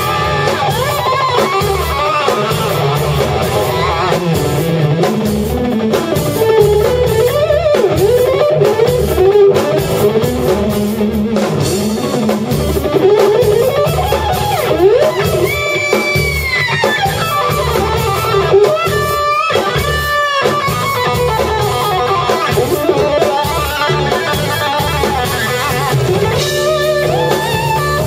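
Live instrumental rock: an electric guitar plays a lead line with string bends over bass guitar and drum kit.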